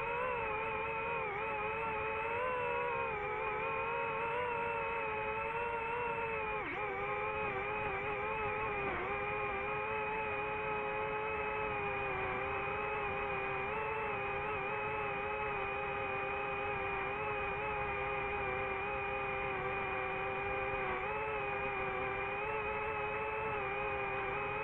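DJI FPV drone's motors and propellers whining steadily in flight. The pitch wavers as the throttle changes, with a brief dip about seven seconds in.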